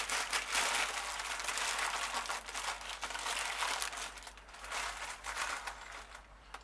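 Baking paper crinkling and rustling as it is folded by hand around a roast to wrap it. The crackle is dense at first and thins out near the end.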